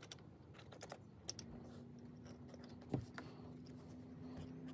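Faint scattered clicks and light taps from handling small objects, with one louder knock about three seconds in. A low steady tone comes in about a second and a half in, as background music starts to fade up.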